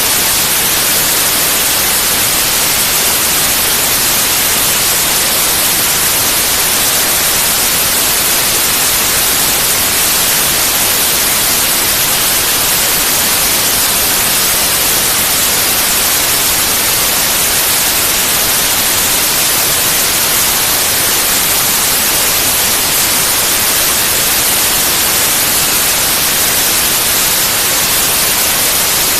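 Steady white noise: an even, unbroken hiss, brightest in the high range, with no changes.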